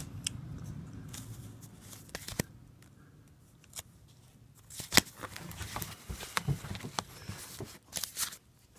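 View-Master reels in their paper sleeves being handled and shuffled through: scattered light clicks and paper rustles, busier in the second half.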